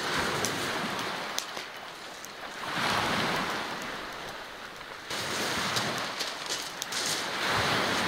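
Small waves breaking on a pebble beach, the surf swelling and falling back three times, with scattered sharp clicks over the wash.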